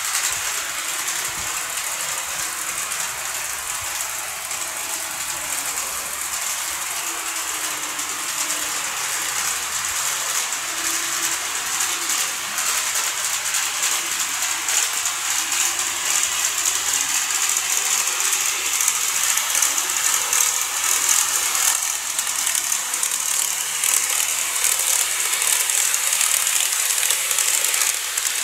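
KATO 381 series Yakumo model train running on its track: a steady, high-pitched rattle of wheels and motor with fine clicking, a little louder in the second half.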